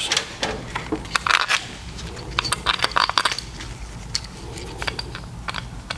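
Irregular light metallic clicks and clinks, a short cluster about a second in and a denser run around the middle, as small Torx bolts and the valve body with its solenoid pack are handled and the bolts are set into their holes.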